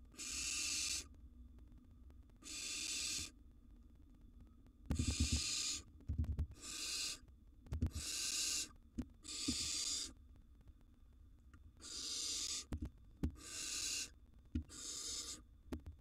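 Barn owl nestlings giving their rasping hiss, the snore-like food-begging call, about ten times, each hiss lasting under a second with short gaps between. Midway there are a few low thumps as the owlets shuffle in the nest box.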